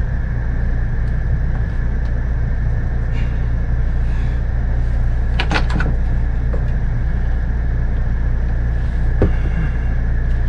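Steady machine hum with a thin high whine, joined by a quick cluster of sharp clicks about halfway through and a single click near the end, as fittings or tools are handled.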